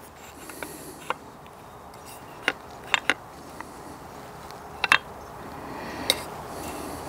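Sharp clicks and light knocks of a rifle's barreled action being handled and seated in a magnesium chassis, scattered irregularly, loudest in two close pairs near the middle.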